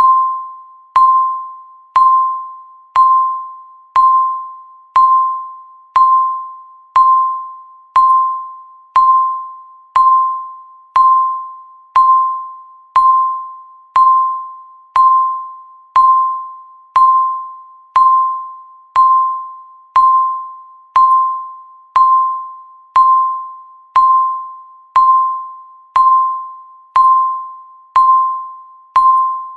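Countdown-timer beep sounding once every second: a single clear electronic tone, each beep starting sharply and fading away before the next one.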